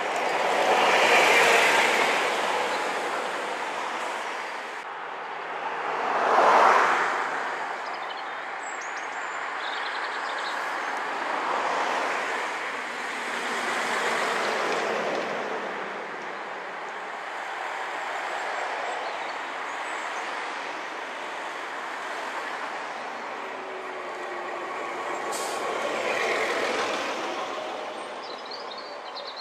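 Buses and cars driving past one after another, each passing swelling and fading. A 1998 Scania single-deck bus goes by at the start, and a 1950 double-decker bus passes around the middle.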